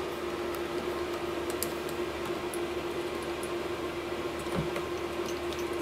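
A steady electrical hum with a faint hiss, from running shop equipment. A few faint light ticks, mostly in the second half, as the metal clamping nut is turned by hand.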